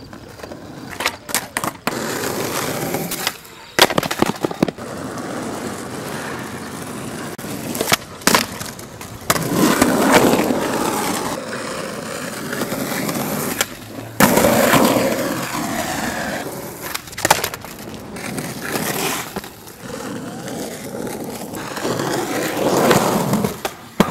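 Skateboard wheels rolling over rough asphalt, broken several times by the sharp crack of the board hitting the ground in tricks and landings.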